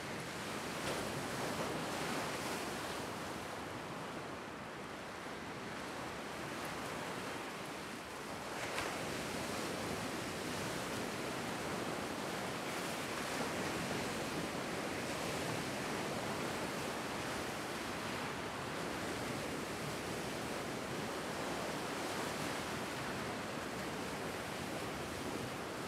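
Lake Superior waves breaking and washing over a flat rocky shore: a steady rush of surf that swells and eases, with a sharper crash about nine seconds in.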